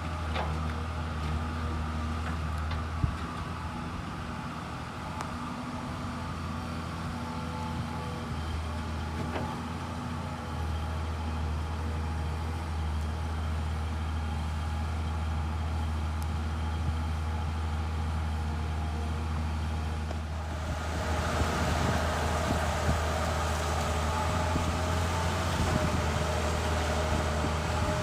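Komatsu PC210 hydraulic excavator's diesel engine running with a steady low drone. About two-thirds of the way through it gets louder, with added hiss and higher tones, as the machine works harder.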